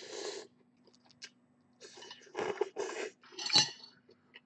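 A sip slurped from a metal spoon of noodle soup, then short eating noises. About three and a half seconds in comes a sharp clink with ringing as the metal spoon is set down against the ceramic bowl.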